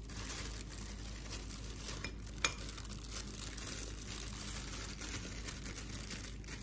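Soft plastic takeaway bag crinkling while vegetables are spooned out of it into a bowl of soup, with faint wet stirring sounds and a single sharp clink of the metal spoon about two and a half seconds in.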